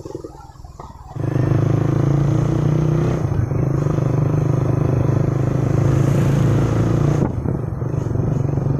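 Vehicle engine running steadily on the move, with road noise. It cuts in abruptly about a second in after a quieter start and shifts abruptly about seven seconds in.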